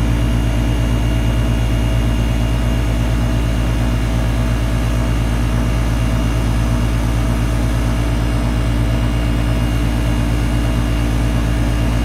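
Nordyne central air conditioner's outdoor condensing unit running steadily, its Copeland compressor and condenser fan making a constant hum, described as a purr.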